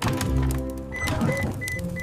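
Cartoon background music that starts with a sudden low thud; from about a second in, short high beeps repeat about three times a second.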